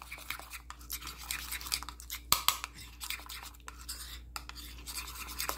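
Metal spoon stirring a thick batter paste, used to seal spring-roll wrappers, in a ceramic bowl, scraping and clicking against the bowl in quick, irregular strokes.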